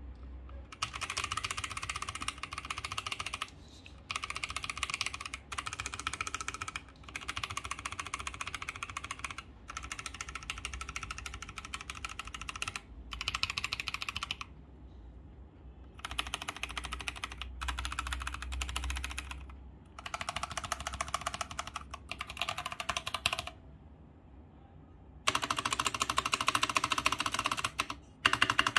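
Mechanical keyboard with Gateon Brown tactile switches and Cherry-profile keycaps (AKKO Designer Studio MOD001), typed on in stretches of rapid keystrokes broken by short pauses. The last few seconds are louder.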